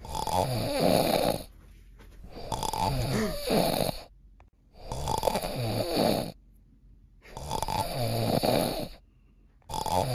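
A person snoring loudly and regularly: four long snores about every two and a half seconds, with a fifth beginning near the end.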